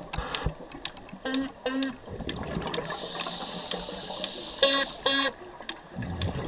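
Underwater sound at a scuba dive: scattered short clicks and a hiss of bubbles about halfway through. Twice, about three seconds apart, comes a pair of short honking tones.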